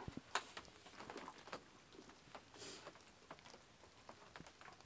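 Near silence with faint, irregular small clicks and rustles, a few each second.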